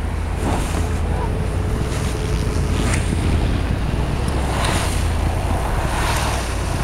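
Pickup truck's engine running under throttle and its tyres spinning in deep snow, a steady low rush of noise: the truck is stuck with no traction.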